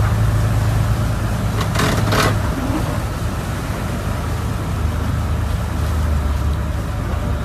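Motor yacht engines running with a steady low drone while the propellers churn the water. Two short bursts of noise come about two seconds in, and the drone drops lower soon after.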